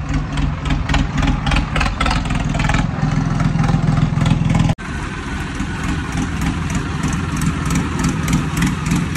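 Swaraj 963 FE tractor's three-cylinder diesel engine running steadily at low speed as it rolls slowly close by. About halfway through, the sound cuts out for an instant and comes back with the engine idling.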